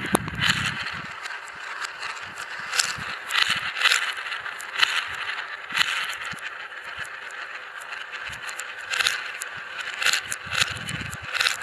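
Marbles rolling and spinning around the funnels and tracks of a big marble run: a steady rolling rush with frequent irregular clicks and clacks as marbles drop and knock together.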